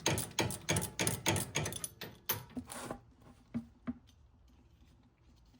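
A rapid run of sharp metallic knocks, about three a second, from hand tools working on the steering rack's bolts and fittings, stopping about three seconds in and followed by two fainter clicks.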